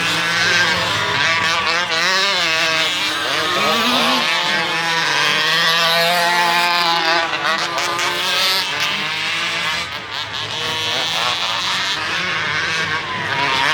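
1/5-scale RC truck's engine running at varying speed, its pitch rising and falling continually as the throttle is worked.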